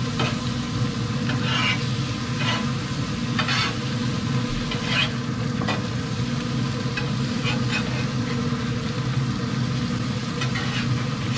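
Food sizzling on the grates of a Pit Boss 1150 pellet grill while a metal spatula and tongs scrape and clink against the grate every second or so as the food is turned. A steady low hum runs underneath.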